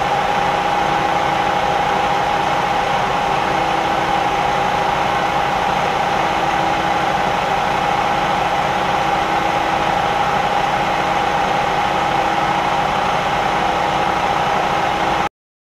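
Variable-speed Series 1 Bridgeport knee mill running, its end mill cutting a metal pommel blank held in a dividing head: a steady high whine over an even cutting hiss. It cuts off suddenly near the end.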